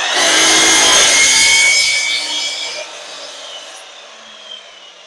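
12-inch miter saw blade cutting down into a flat sheet of plywood, loud for nearly three seconds. Then the motor winds down, its pitch falling as it fades. The board is too wide for a miter saw to cut through.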